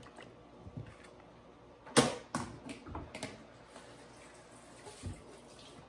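One sharp knock about two seconds in, the loudest sound, followed by a few lighter clicks and taps over a quiet room hiss.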